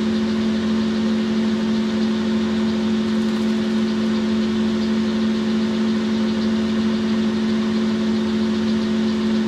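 Boxford centre lathe running steadily with its spindle turning, a constant even machine hum with no change in speed, as a cloth polishes the spinning workpiece.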